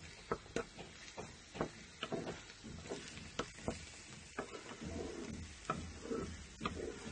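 Wooden spatula stirring a spinach and egg scramble in a non-stick frying pan, tapping and scraping against the pan in irregular clicks, with the food sizzling gently underneath.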